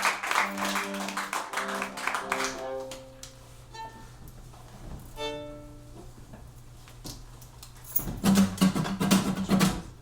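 Acoustic band with guitar and viola playing the close of a song: held chords that die away over the first few seconds, then a couple of single plucked notes left ringing, and a short, louder passage near the end.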